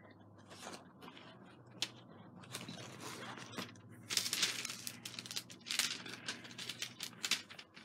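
Clear plastic cover film on a diamond painting canvas crinkling and crackling as it is lifted and smoothed down by hand. It is faint, with scattered crackles that get busier about four seconds in.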